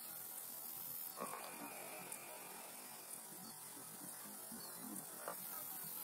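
Faint, steady low hum and hiss of background noise, played back at half speed, with two soft ticks.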